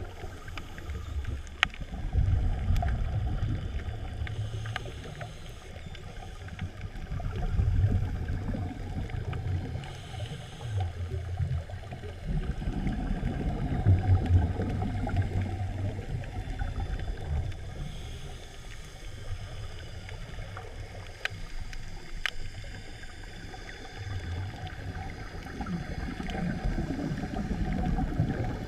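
Muffled underwater noise picked up by a camera in a waterproof housing as the diver swims along the bottom, with low gurgling rumbles swelling every few seconds and a few sharp clicks.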